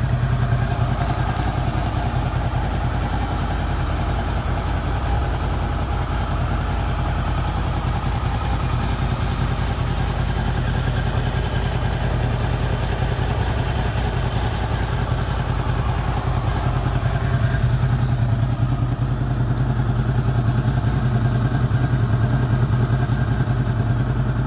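Honda VFR800 VTEC V4 engine idling steadily while warming up after a timing chain replacement, a little louder in the last few seconds.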